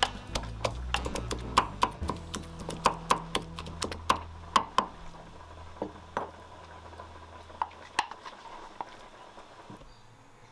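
Wooden pestle pounding ginger, garlic and mushroom stems into a paste in a wooden mortar: a run of sharp knocks, several a second, that thin out to a few scattered taps as the paste is scraped out into a glass bowl.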